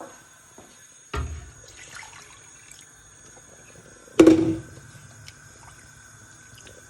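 Water splashing into a cooking pot of chicken as it is filled to the top, in two short sudden pours, the second louder, about a second in and about four seconds in.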